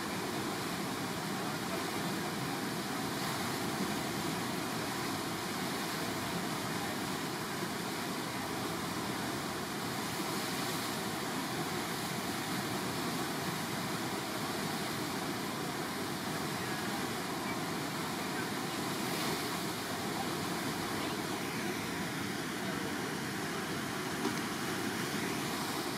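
Steady rushing of churning whitewater from the Eisbach river's standing surf wave.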